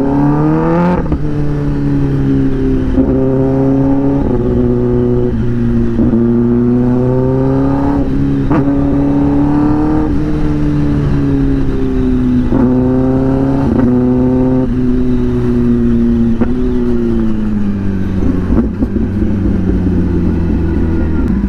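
Kawasaki ZX-10R's inline-four engine through a loud SC-Project aftermarket exhaust, pulling through the gears. The revs climb and break at each of several gear changes, then fall away near the end as the bike slows and shifts down.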